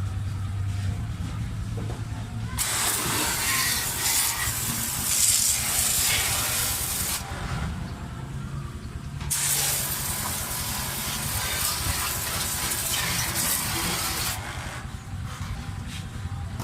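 Compressed-air spraying hissing in two long bursts of several seconds each, with a short break between them, over a steady low hum.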